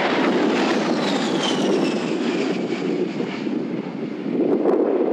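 Twin TF34 turbofan engines of a US Air Force A-10 Thunderbolt II (Warthog) as the jet passes overhead in a banking turn. The engines make a steady loud rush, and a high fan whine falls in pitch about a second in as the jet goes by.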